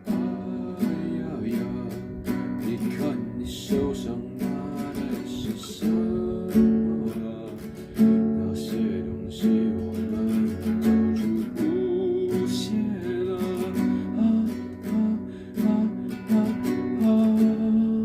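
Acoustic guitar strumming chords in a steady rhythm, with some single notes picked between the strums.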